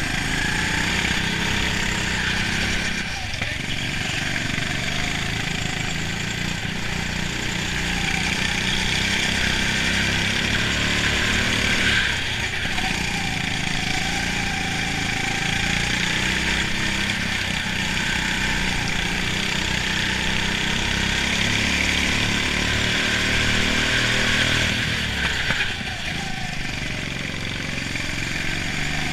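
Go-kart engine running hard on track, heard from on board over a steady rushing noise; the engine note drops and picks up again a few times as the kart goes through corners.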